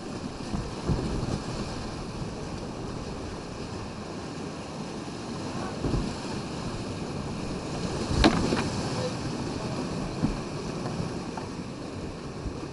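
River Findhorn whitewater rushing past a kayak-mounted camera, a steady roar of water with wind on the microphone. Occasional sudden knocks and splashes from the boat and paddle, the loudest about eight seconds in.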